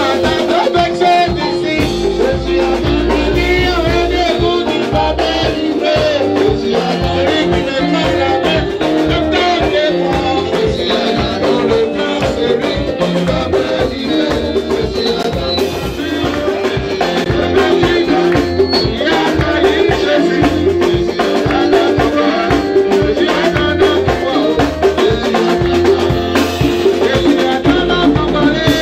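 Live praise music with a steady dance beat: a band with drum kit playing under amplified singing.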